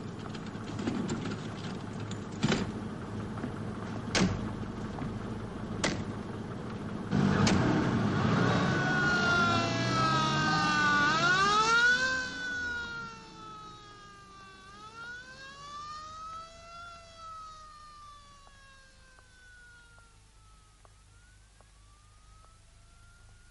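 Four sharp knocks like ambulance doors slamming shut, then from about a third of the way in the ambulance's engine and a wailing siren that winds up, falls, rises again and fades into the distance as the ambulance drives away.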